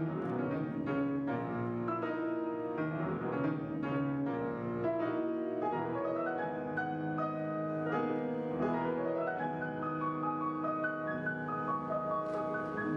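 Grand piano played solo: a flowing classical passage of quick notes over held bass notes.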